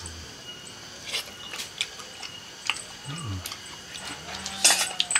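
Close-up eating sounds: sharp crunches, clicks and smacks of a mouth at irregular intervals, with the loudest cluster near the end.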